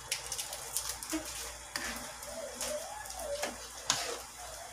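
Metal spoon clinking and scraping against an aluminium wok while stirring rice noodles into sauce, in irregular light clicks.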